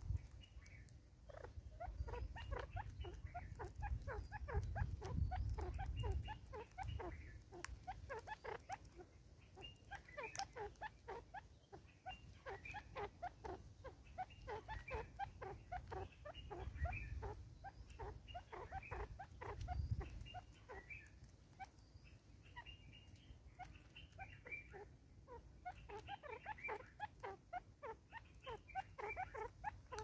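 Birds calling in long runs of short, quick clucking notes, several a second, each dropping in pitch; a low rumble comes and goes underneath.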